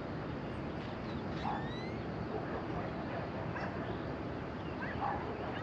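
Steady wind noise with a few short animal calls, about three, one of them rising in pitch.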